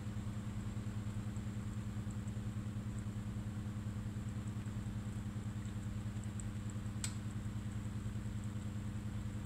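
A low, steady mechanical hum that pulses about five times a second, with one sharp click about seven seconds in.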